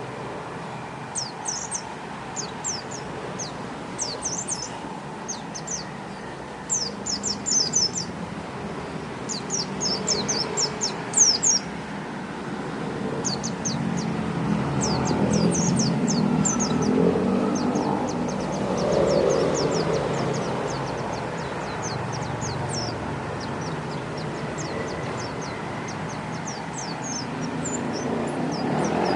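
Pet white-eye (pleci) chirping in quick clusters of short, high, falling notes throughout. A low rumble swells and fades in the middle.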